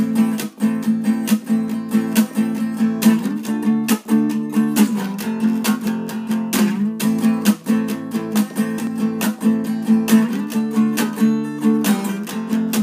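Acoustic guitar strummed in a steady rhythm, ringing chords with sharp strokes throughout, with no singing yet.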